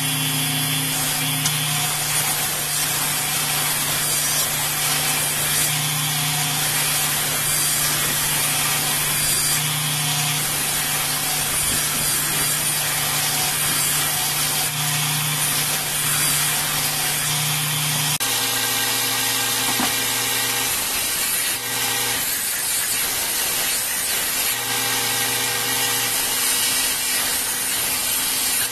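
Electric belt grinder running with a forged steel dagger blank pressed against the belt: a steady grinding hiss over the motor's hum. The hum changes about eighteen seconds in.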